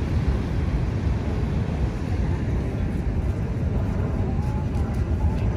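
Steady low rumble of Niagara Falls, with wind buffeting the microphone.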